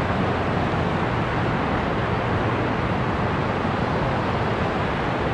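Ocean surf breaking, a steady even wash of noise with no distinct events.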